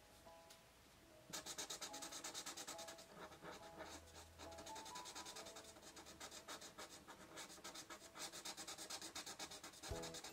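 ShinHan marker nib scrubbing back and forth on paper while colouring in, a quick run of scratchy strokes starting about a second in, faint, over soft background music.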